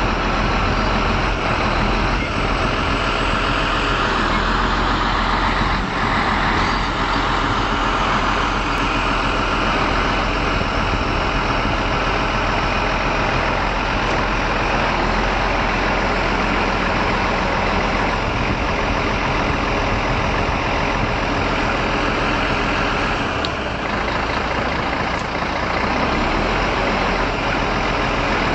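Heavy truck engine running steadily at a constant speed, with a brief change in its deep hum about 23 seconds in.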